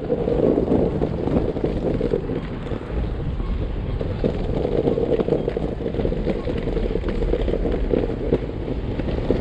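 Electric skateboard rolling over rough asphalt: a steady rumble from the wheels with many small clicks from cracks and bumps in the road, and wind buffeting the microphone.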